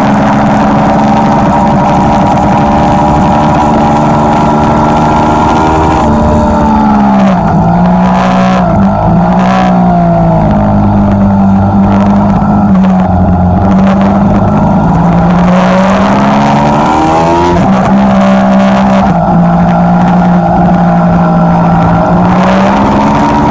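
Ducati sportbike engine under way on track, over heavy wind rush. The engine note drops about six seconds in as the bike brakes and shifts down, with a few quick throttle blips, then holds low and steady through a slow corner. It rises again under hard acceleration, dips once at a gear change, and climbs again near the end.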